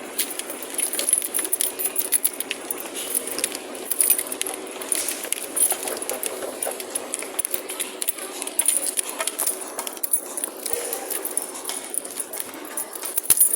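Rapid, irregular clicking and jangling of small hard objects over a steady high hiss.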